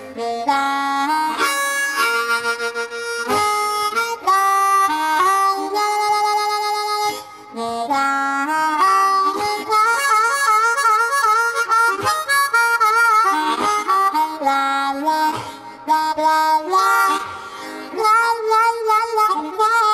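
Blues harmonica music: a harmonica playing a melody of held and bent, wavering notes.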